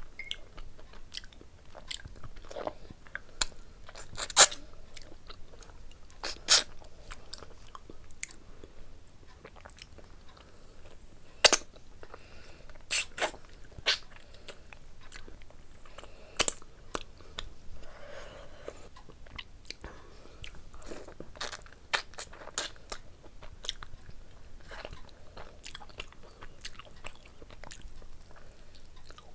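Close-up eating sounds of mutton curry eaten by hand: biting meat off the bone and chewing, with sharp clicks every few seconds, the loudest about four, six, eleven and sixteen seconds in.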